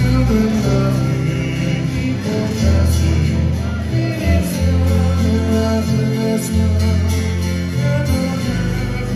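A live acoustic string band playing a Christmas song: strummed acoustic guitar and ukulele over bass notes, each held about a second, with the bass the loudest part.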